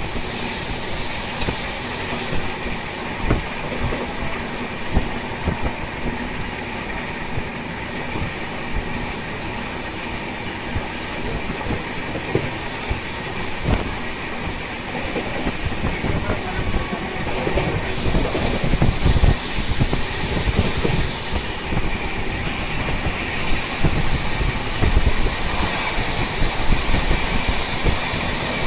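Poorva Express passenger train running fast, heard from an open coach door: a steady rumble and rattle of wheels on rail with irregular clickety-clack knocks from the rail joints, getting a little louder in the last third.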